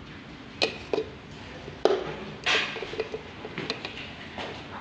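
Handling noise: about half a dozen irregular clicks, knocks and rustles, one of them a longer scrape about halfway through.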